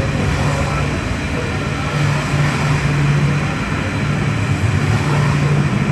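Taipei Metro Wenhu line rubber-tyred train running, a steady noise with a low hum that dips briefly now and then.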